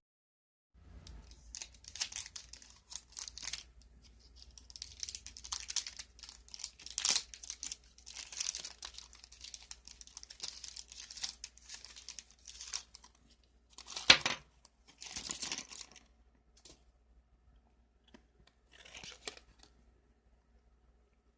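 Plastic packaging crinkling and tearing as it is handled and opened by hand, with a sharp loud rip about two-thirds of the way through and a last brief crinkle near the end.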